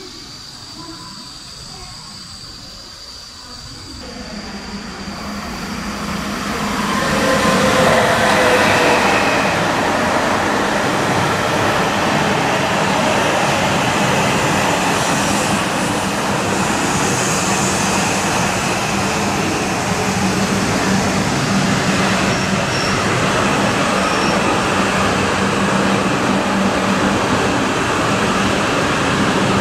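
E5-series Shinkansen bullet train approaching along the station track. Its wheel and motor noise builds over a few seconds, then holds as a steady, loud rumble and hiss with a low hum while the long train rolls by.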